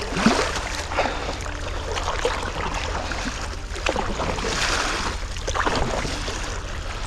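Paddle strokes and water splashing around an inflatable stand-up paddle board at sea, in uneven surges every second or so, over a steady low wind rumble on the microphone.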